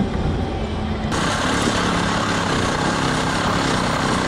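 A reciprocating saw (Sawzall) starts cutting about a second in and runs steadily with a harsh, even buzz.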